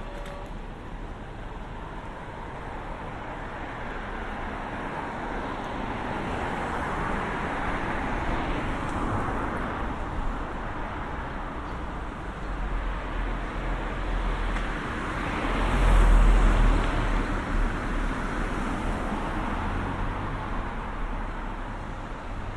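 Road traffic: passing vehicles with tyre noise swelling and fading, the loudest going by about sixteen seconds in with a deep rumble.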